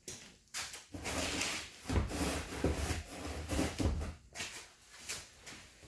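Paper towel rustling as it is crumpled and pushed into openings in a mini bike frame, with light handling bumps, mostly from about a second in until about four seconds in.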